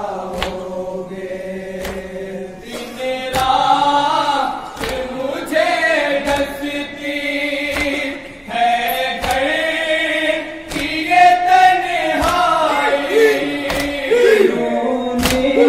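A group of men singing a Shia mourning lament (nauha) in unison through a PA, with long held notes. Sharp slaps of chest-beating (matam) mark the beat about once a second.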